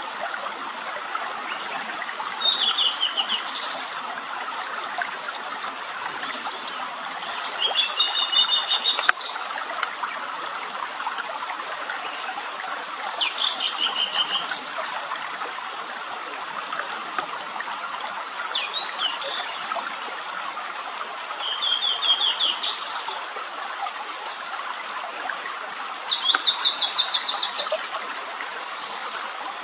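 Tledekan laut songbird singing, six song phrases about every four to five seconds, each a quick downward-sweeping note followed by a fast rattling trill. A steady hiss runs beneath.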